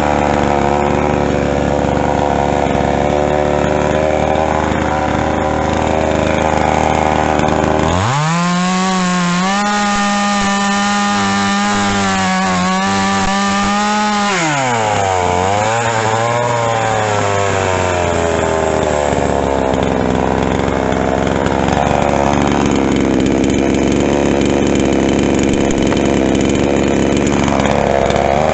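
Pinkway 63cc two-stroke chainsaw idling, then opened up to full throttle about eight seconds in. It holds a high, steady scream for about six seconds before the revs drop back to idle.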